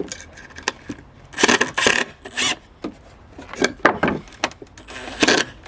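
Hand-handling noises around the impact driver and workpiece: irregular clicks and short bursts of scraping and rubbing, as the man works to free something stuck. The driver's motor is not running.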